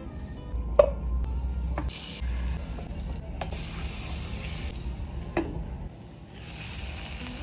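Chicken thighs frying in butter in a pan, a sizzling hiss that starts and stops abruptly in stretches, with four sharp knocks of cookware against the pan.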